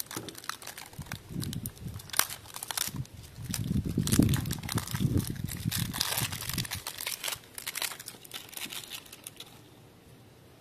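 Plastic shrink-wrap crinkling and crackling as it is picked at, peeled and torn off a folding pocket knife: rapid, irregular crackles that stop about a second before the end. Some wind rumble on the microphone in the middle.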